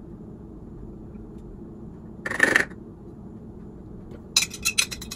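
A glass mixing bowl tipped over a funnel in a glass jar: a short scrape about halfway, then from about four seconds in a rapid run of clinks and rattles of glass against the funnel and jar.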